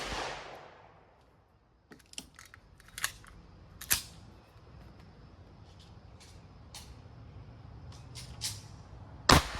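A .22 LR semi-automatic pistol fires a single shot near the end, with a short echoing tail. Before it, the echo of the previous shot fades at the start, and a scatter of smaller sharp cracks and clicks follows, the loudest about four seconds in.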